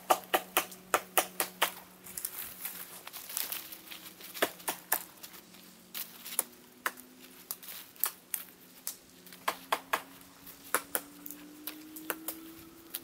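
Dry twigs and dead branches snapping and crackling in an irregular run of sharp cracks, thickest in the first couple of seconds and sparser after, as deadwood is broken and stepped among. A faint low hum slowly rises in pitch underneath.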